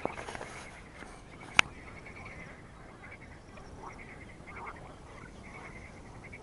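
A chorus of frogs calling from the pond, rapid pulsed calls repeating over and over. One sharp click stands out about a second and a half in.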